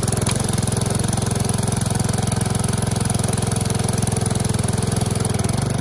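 Gasoline pressure washer's small engine running steadily, freshly started.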